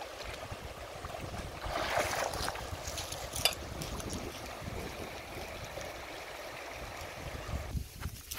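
Shallow river running and rippling over stones, a steady rushing sound that swells briefly about two seconds in, with a low rumble underneath.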